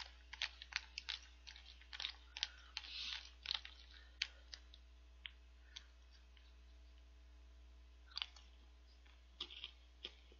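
Faint, quick clicks and taps of stirring chocolate cereal snack pieces in milk in a clear plastic cup, dense for the first few seconds, then only a few scattered ones.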